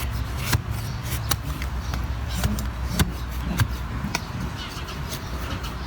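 A handful of sharp, irregular clicks and knocks from hoof-trimming tools working a horse's hoof, over a low steady hum.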